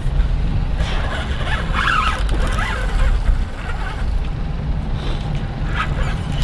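Wind buffeting the microphone on an open boat: a steady, irregular low rumble, with a few faint higher sounds about two seconds in.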